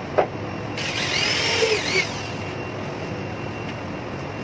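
Corded electric drill run in one short burst about a second in, its motor whine rising then dropping away as the trigger is released. A sharp click comes just before it.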